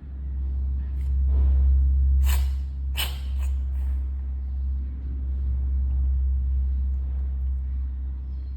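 Cat sneezing several times in quick succession, short sharp sneezes bunched between about two and four seconds in, over a steady low rumble. The sneezing comes from upper respiratory congestion.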